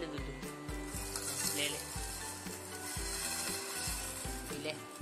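Background music with a steady beat and held tones, with a high hissing wash laid over it for a few seconds from about a second in.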